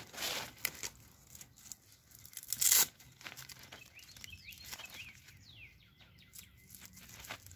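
Velcro strap on a pop-up soccer goal's net being pulled open and pressed around the frame pole, with rustling of the nylon netting and fabric sleeve. There is one loud rip a little under three seconds in. Birds chirp faintly now and then.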